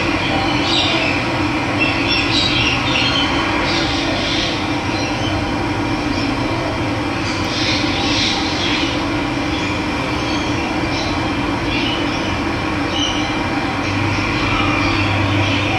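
Steady rush of flowing water, with birds chirping and calling over it every few seconds.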